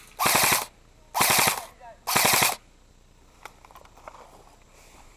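Airsoft gun firing three short full-auto bursts, about a second apart and each about half a second long, as a rapid rattle of shots. A few faint clicks follow.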